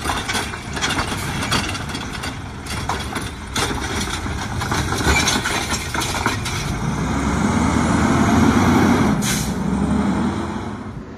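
Automated side-loader garbage truck tipping a recycling cart: the contents clatter into the hopper and the cart clanks as the arm sets it down. Then the truck's natural-gas engine revs up as it pulls away, with a short air-brake hiss near the end.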